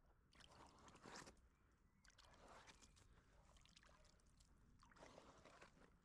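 Faint sloshing and scraping of a hand working in shallow muddy water and against a pond liner, in a few short bursts.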